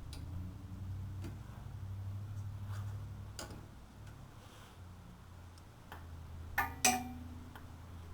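Ratchet clicking in short runs as it loosens the 10 mm caliper slider pin bolts on a 2003 Honda Element's front brake, the loudest quick run of clicks about six and a half seconds in, over a low steady hum.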